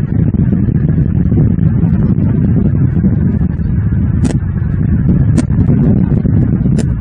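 Steady low rumbling noise on the nest camera's outdoor microphone, with three short, sharp clicks in the second half.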